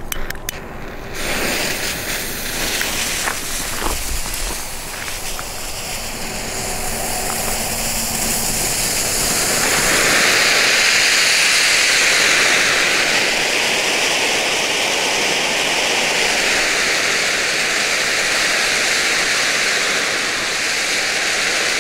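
Two small Nico Super Sprüher silver spark fountains spraying with a steady hiss. The hiss starts about a second in and grows louder, fullest from about ten seconds on.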